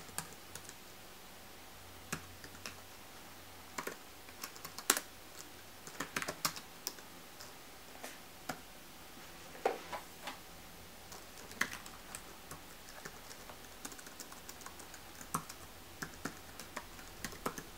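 Computer keyboard typing: short, irregular runs of keystrokes separated by pauses.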